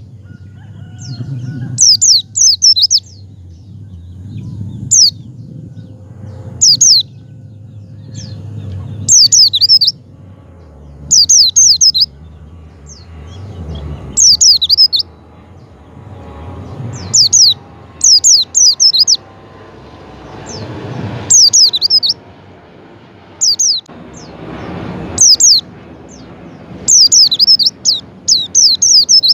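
White-eye (pleci) calling: loud, high-pitched chirps in quick clusters of a few sharp notes, repeated every second or two.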